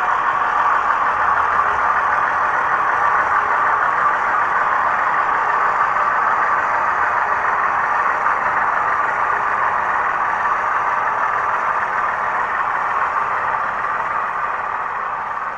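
HO-scale model train, two diesel locomotives hauling wagons, running over the layout track: a steady running noise that eases off near the end as the last wagons pass.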